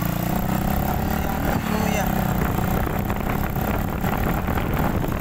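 Small motorcycle's engine running steadily while being ridden at low speed, with a constant low hum.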